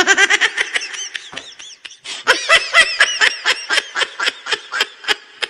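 Loud, hearty human laughter in quick repeated 'ha-ha' bursts, easing briefly about two seconds in before starting up again.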